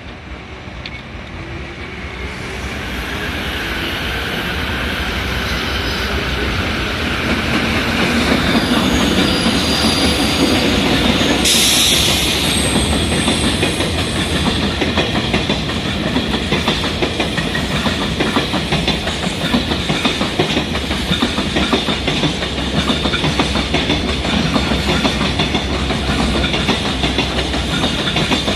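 EF66 electric locomotive hauling a freight train, approaching and growing louder over the first several seconds, passing close about eleven seconds in, then a long line of freight wagons rolling by with steady clickety-clack over the rail joints.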